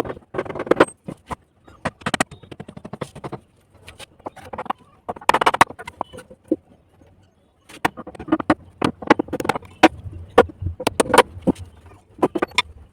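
Irregular sharp knocks and clatter of manual construction work, coming in uneven clusters with short gaps.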